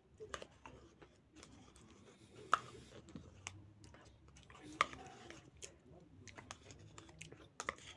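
A person eating yogurt with crunchy chocolate chips, hazelnuts and cookie pieces from a cup with a spoon: soft chewing and mouth sounds, with sharp clicks of the spoon against the cup. The two loudest clicks come about two and a half and five seconds in.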